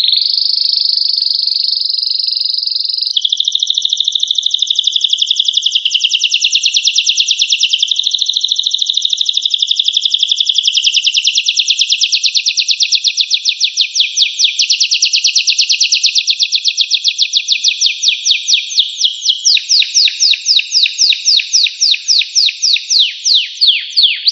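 Domestic canary singing one long, unbroken song of fast high trills, switching from one trill to another about three seconds in and again several times after. Near the end the notes slow into a series of separate, sweeping chirps.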